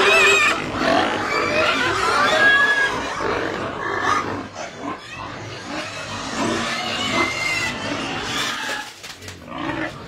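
Several young pigs squealing in a pen: many short high-pitched calls that bend up and down, busiest in the first three seconds and thinning out after that.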